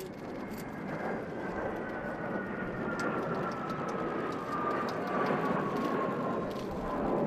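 A formation of Kawasaki T-4 jet trainers flying past: a broad jet roar with a high whine that falls steadily in pitch.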